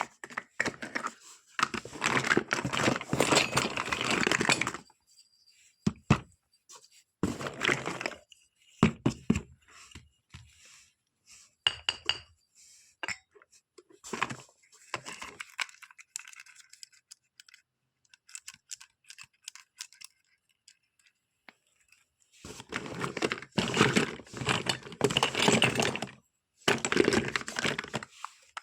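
Plastic packaging crinkling and tearing in several bursts, the longest near the start and near the end, with small clinks and taps of the toy kitchen pieces in between.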